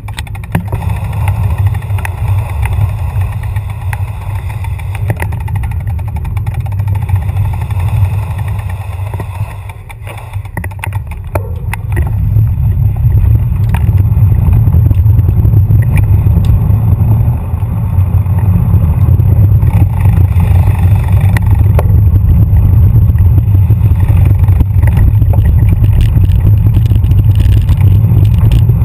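Wind buffeting the microphone of a camera riding along on a road bike in motion: a loud, steady, deep rumble that gets louder about twelve seconds in and stays loud.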